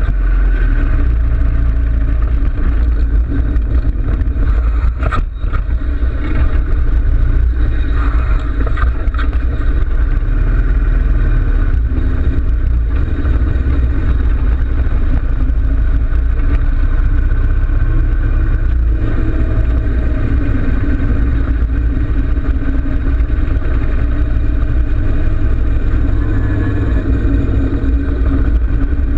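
2013 Harley-Davidson Road King Classic's V-twin engine running steadily while riding, heard from a handlebar-mounted camera, with a deep, loud low rumble. A single short click about five seconds in.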